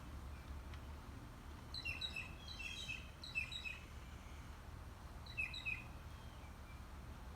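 Backyard birds chirping: a run of short, high notes in quick pairs about two seconds in, lasting about two seconds, then one more pair about five and a half seconds in.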